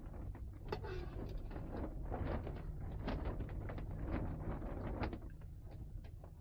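A metal ladle and a wooden fork scraping and knocking against an aluminium cooking pot and basin as boiled meat and potatoes are lifted out of the broth: irregular clinks and scrapes over a steady low rumble.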